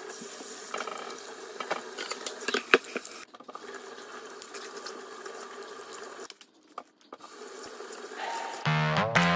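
Kitchen tap running into a stainless steel sink as vegetables are rinsed under the stream, with light knocks of handling and two short breaks in the water sound. Music with a beat comes in near the end.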